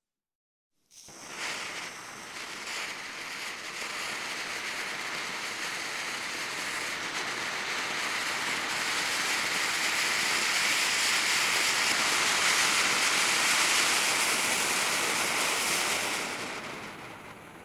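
A firework hissing and spraying continuously, with no bangs. It starts suddenly about a second in, grows louder, then fades away near the end.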